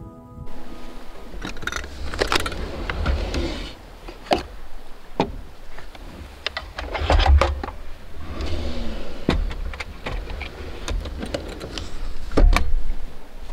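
Off-road vehicle driving over a rough track: a low rumble with irregular knocks and rattles from the body and loose gear.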